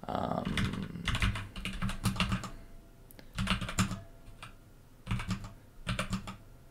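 Computer keyboard typing in short bursts of rapid keystrokes with brief pauses between them.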